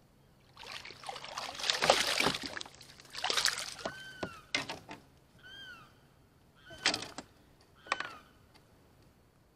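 A small hooked fish splashing at the surface as it is reeled in and swung out of the water. The splashing is loudest about two seconds in, followed by a few short, sharp splashes and knocks.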